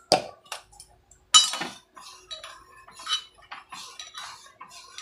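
Metal spoon against a steel pot: two sharp knocks in the first second and a half, then a run of clinks and scrapes as the spoon stirs in the pot.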